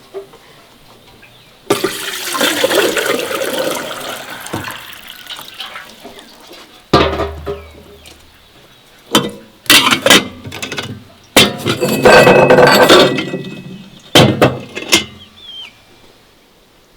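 Water pouring and splashing in several bursts, the longest and loudest about twelve seconds in, with sharp knocks between them.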